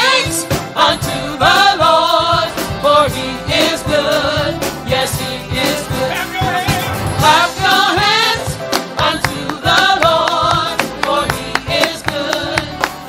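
Gospel praise team singing together in harmony, backed by a live band of keyboards, electric bass guitar and drums keeping a steady beat.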